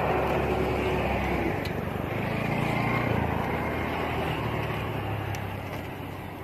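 A motor vehicle passing by, its low engine hum swelling over the first few seconds and then fading away.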